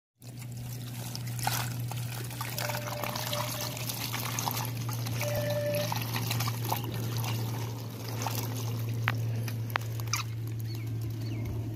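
Water pouring and trickling out of a tipped earthenware pot onto leafy ground, with a few sharp clicks in the second half and a steady low hum underneath.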